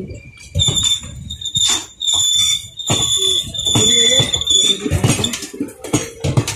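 Indian Railways passenger coaches rolling past at close range, wheels clicking over the rail joints, with a steady high-pitched squeal from the wheels that starts about half a second in and stops near the five-second mark.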